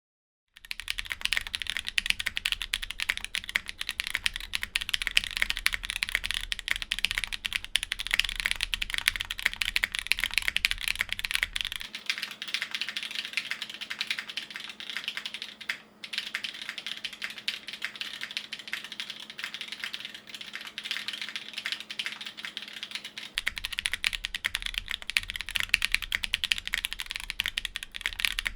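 Fast, continuous typing on a plateless custom mechanical keyboard with an aluminium case, Zenclack Subuwu switches and GMK keycaps: a dense clatter of key presses. It starts about half a second in, with a brief pause about 16 seconds in.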